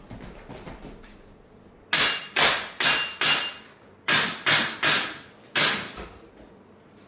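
Airsoft rifle firing a string of about nine sharp shots in quick groups of four, four and then one, each with a short ringing tail.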